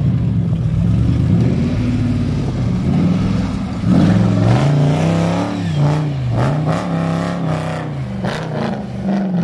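Off-road vehicle's engine revving up and down again and again, its pitch rising and falling, with quicker swings from about four seconds in.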